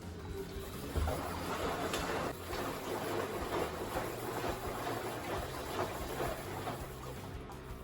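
Panasonic drum-type washing machine turning its drum, with the shaka-shaka, shuru-shuru rustling of its drive belt. The rustling swells about a second in and pulses unevenly. The uploader takes it for an aged belt near its limit, likely to slip off and cause the H35 error.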